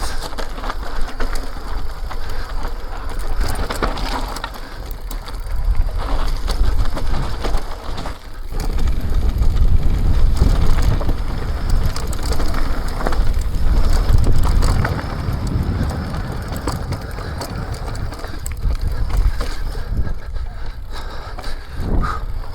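E-mountain bike descending a rough, rutted trail: tyres crunching over stones and gravel and the bike rattling, with wind rumbling on the microphone.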